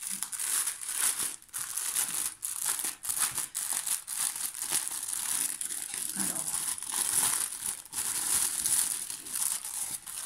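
Thin clear plastic bag holding packets of diamond-painting drills, crinkling continuously and unevenly as it is handled and opened by hand.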